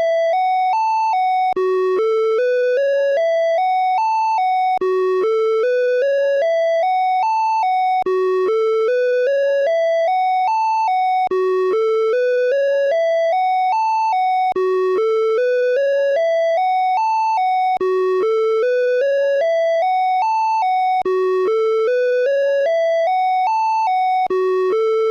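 Åland Islands EAS alarm tone looping: an electronic tone climbs in about ten quick steps from low to high, drops back, and starts over about every three seconds, at a steady loud level.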